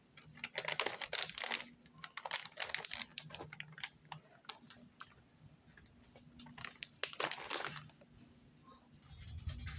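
Plastic food packaging crinkling and crackling as it is handled, in irregular bursts of rapid clicks, over a faint steady hum.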